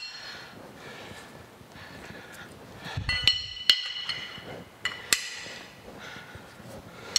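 A steel wrench clinking on a nut and the cast-iron machine body while the overarm clamp nut of a horizontal milling machine is tightened: a dull knock about three seconds in, then several sharp, ringing metal clinks, the last about five seconds in.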